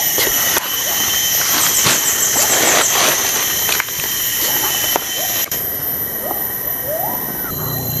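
Tropical forest ambience: a steady high-pitched insect drone, with a quick run of short chirps about two seconds in. Leaves and undergrowth rustle and snap as the hunters push through the brush.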